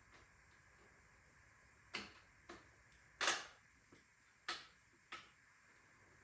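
Sharp clicks and knocks of tools and small metal parts being handled while a bicycle is stripped for parts: five or so separate knocks with a couple of fainter ticks, the loudest about three seconds in.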